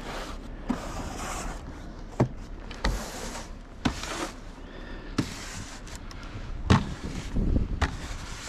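Snow shovel digging and scraping through snow: a string of irregular strokes, several ending in a sharp knock.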